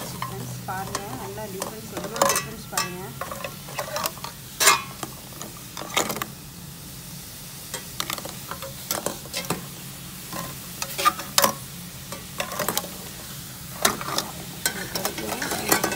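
Baking-soda water boiling in a steel pot, while a silver plate is moved and turned in it with metal tongs, the tongs and plate knocking and clinking against the pot a dozen or so times.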